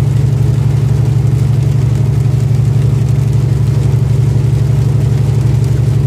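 Engine of a loaded truck running steadily inside the cab at highway speed: a loud, even low hum.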